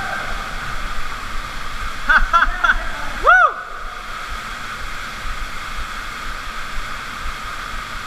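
Steady rush of an underground waterfall pouring into a cave pool. About two seconds in a person gives three short shouts, then a louder rising-and-falling whoop.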